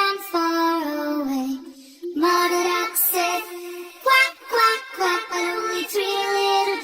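A child's voice singing a melody over backing music, with a short pause about two seconds in.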